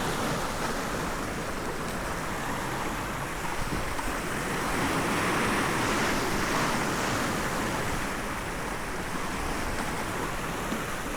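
Rough sea surging against a rocky shore, a steady wash of surf with wind on the microphone; one wave swells louder about five seconds in.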